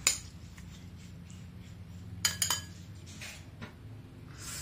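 A spoon clinking and scraping against a ceramic bowl as thick porridge is stirred: one sharp clink at the start, a quick run of clinks about two seconds in, then softer scraping.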